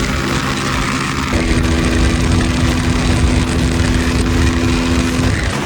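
Motorcycle engine running at a steady pitch while riding, over a constant low rumble. The steady hum starts about a second in and drops away near the end.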